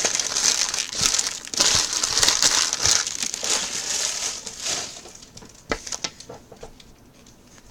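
Wrappers of 2016 Donruss baseball card packs crinkling as packs are handled and torn open; the crinkling stops about five seconds in, followed by a few light clicks.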